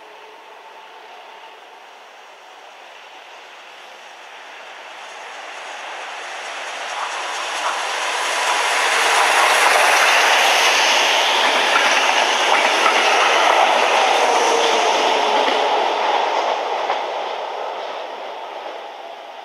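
A train passing by on the rails. Its running noise grows over several seconds, stays loud for about six seconds with a few wheel clicks over rail joints, then fades away.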